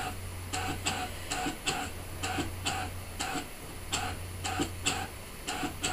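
Brother ScanNCut DX cutting machine drawing with a pen. Its carriage mechanism gives a steady low hum under a run of short, irregular clicks, about three a second.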